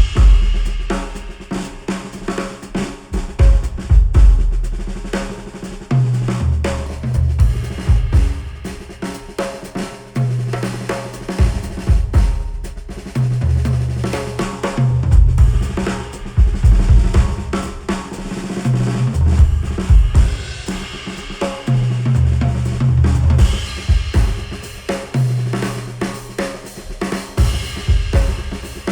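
Instrumental music with a busy drum kit (kick, snare and cymbals) over a bass line that steps between held low notes, played back through a pair of Sennheiser headphones and recorded by microphones.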